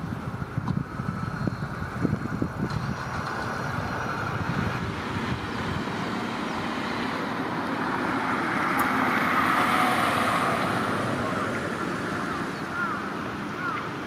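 Road traffic noise: a passing vehicle swells to its loudest a little past the middle and fades again, over a low rumble of wind. A few short chirps near the end.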